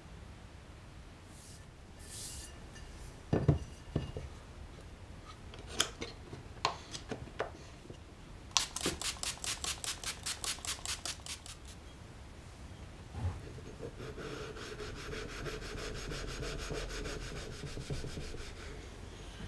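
A few knocks as the gear is handled, then a hand spray bottle pumped quickly about six times a second, misting water onto a waterstone. After that, a small white stone is rubbed back and forth over the wet waterstone with a steady scrubbing sound.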